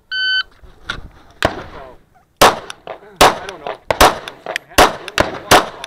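A shot timer gives its start beep, then a Kahr CW9 9mm pistol fires a rapid string of shots, roughly one every half second.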